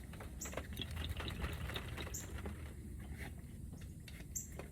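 Scattered light clicks and taps of hand tools and small metal parts being handled, with three short high chirps about two seconds apart.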